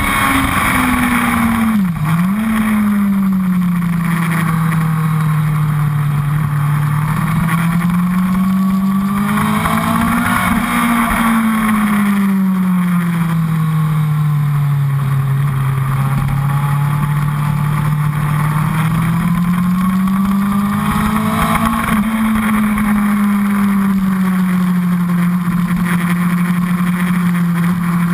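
Honda CBR1000RR inline-four sportbike engine under hard riding on track, its pitch rising and falling in long slow sweeps as the rider goes on and off the throttle, with a quick sharp dip in pitch about two seconds in. Steady wind rush rides over the engine on the tank-mounted camera.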